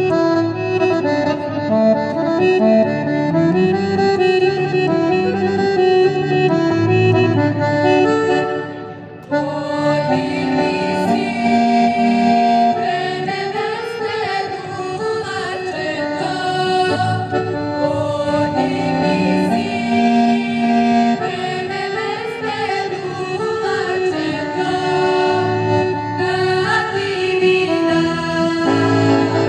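Women's folk singing group singing a traditional Serbian song together in held, ringing notes. The sound dips briefly about nine seconds in, then the singing carries on.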